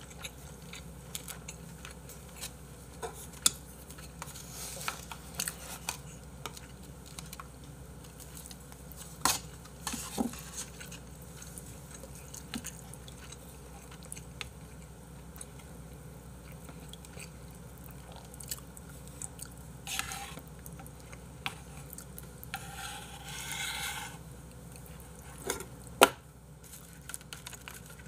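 Close-up eating sounds: chewing, with a metal spoon and chopsticks clicking against a ceramic soup bowl, and a sharper knock near the end.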